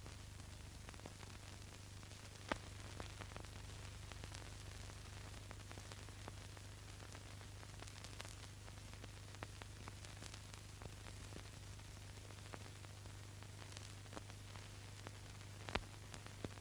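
Steady hiss and low hum of an old film soundtrack, with scattered crackles and clicks. Two louder clicks come about two and a half seconds in and near the end.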